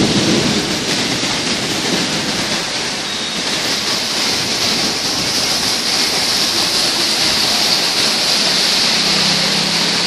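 Heavy rain pouring down steadily, a dense hiss of rain falling on the road and surfaces. A low hum comes in near the end.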